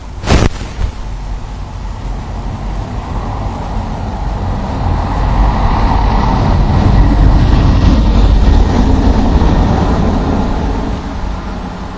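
A vehicle passing by: a rumbling noise that builds over several seconds, peaks past the middle and then fades. A sharp knock comes just at the start.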